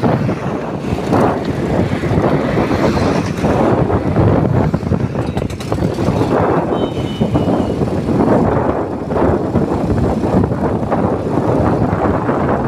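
Wind buffeting the microphone of a phone carried on a moving motorcycle, a loud, unsteady rush mixed with road and traffic noise.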